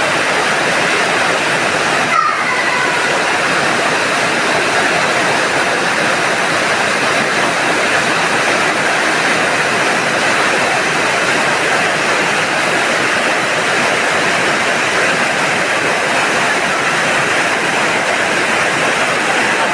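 Steady, loud rushing of a storm's heavy rain and wind, with no break, only a brief dip about two seconds in.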